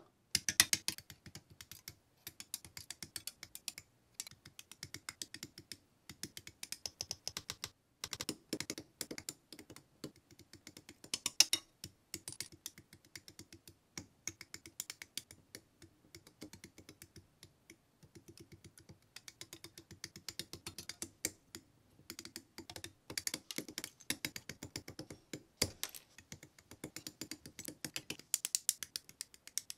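Rapid plastic clicking and clattering as model-kit parts are handled and clipped off their plastic sprues with side cutters, with a few louder snaps.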